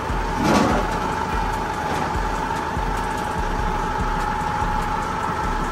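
Forklift running with a steady hum and a constant high whine as it lifts an engine out of the car's engine bay. There is a brief louder sound about half a second in.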